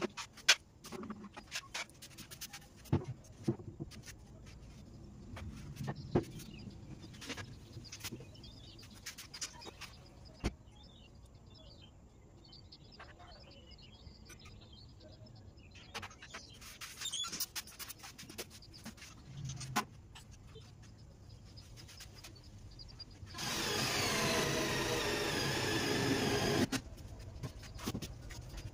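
Scattered knocks and clatter of wooden boards being handled. Later a power drill runs for about three seconds with a loud whine.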